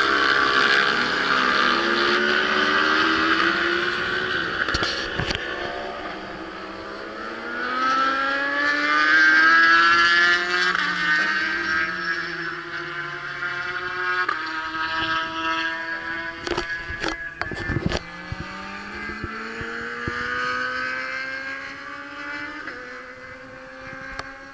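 Racing motorcycles at speed on the track, several engines at once. Their pitch rises under acceleration, steps as they shift gear and falls away as they pass, loudest a little under halfway through.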